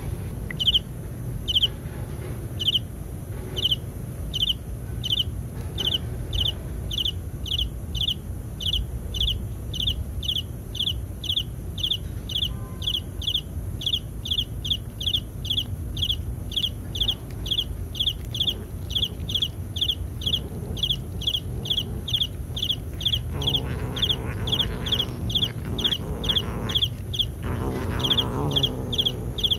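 A high-pitched chirp repeating steadily at one pitch, at first about once a second, soon quickening to about two or three a second. A lower drawn-out sound comes twice near the end.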